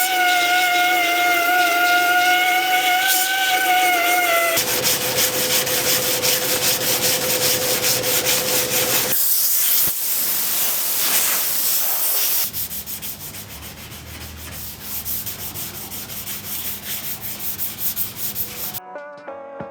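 Power sanding on car body panels, heard in several abrupt segments. First there is a steady motor whine, then about four seconds in a dense, rasping sanding noise takes over, and the sound turns quieter and different about two-thirds of the way through.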